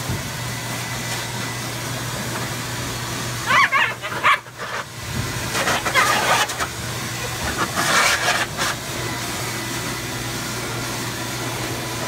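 A pet grooming blow dryer blows steadily through a ribbed hose with a constant motor hum, while the husky being dried gives three short, wavering vocal outbursts, about four, six and eight seconds in.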